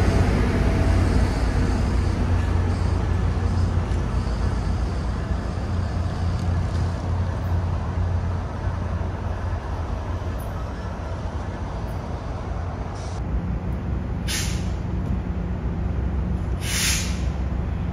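Tri-Rail diesel locomotive rumbling past and fading away as it leaves the station. Later, a train standing at the platform hums at idle and gives two short hisses of air, a couple of seconds apart.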